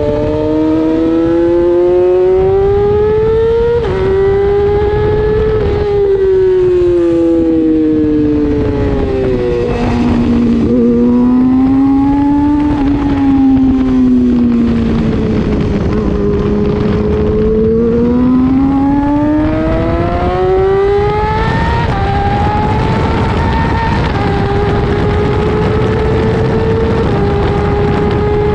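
600cc racing motorcycle engine heard from onboard. It revs up and shifts up once, then its pitch falls and rises as the bike brakes and accelerates through slow corners. Near the end it pulls hard through three quick upshifts, each a sudden drop in pitch, with a steady rush of wind and road noise underneath.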